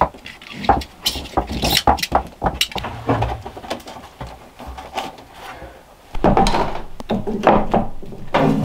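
Knocks and rubbing of flexible plastic water tubing being worked up through a hole in a wooden floor against the boards. About six seconds in, this gives way abruptly to a louder, steadier sound.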